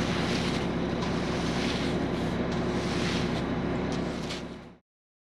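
An engine running steadily, with wind noise on the microphone, cutting off suddenly near the end.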